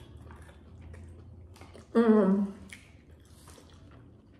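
Soft wet squishing and small clicks of hands picking through a sauced seafood boil of lobster, shrimp and potatoes in a glass dish, with chewing. About two seconds in, a short voiced sound from a woman, half a second long, is the loudest thing.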